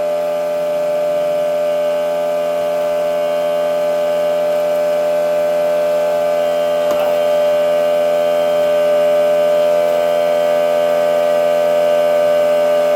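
Electric air compressor running steadily under load, a loud constant motor hum with a stack of even tones, refilling its tank to supply air to the pneumatic staple gun.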